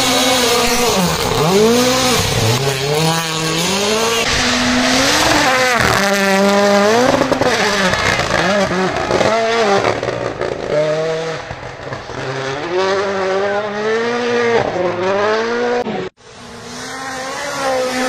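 Rally1 cars' turbocharged four-cylinder engines revving hard at full attack, the pitch climbing and dropping again and again through gear changes and lifts. Near the end the sound breaks off sharply for a moment, then another car's engine takes over.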